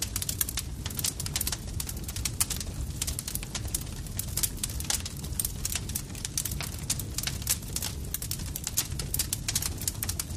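Campfire crackling: many quick, irregular pops and snaps of burning wood over a steady low rumble of the flames.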